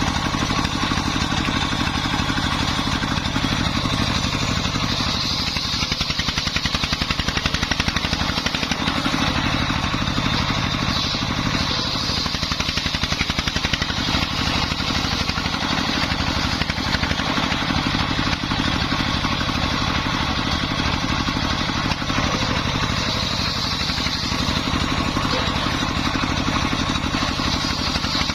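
Dongfeng 24 hp single-cylinder diesel engine running steadily under load, belt-driving a homemade circular saw; a higher-pitched sound from the saw swells at several points as the blade cuts through wood.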